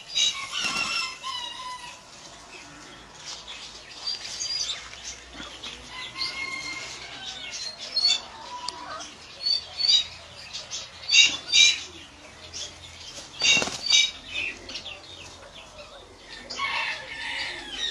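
A rooster and another bird fighting: repeated bursts of wing flapping mixed with short, high calls and squawks.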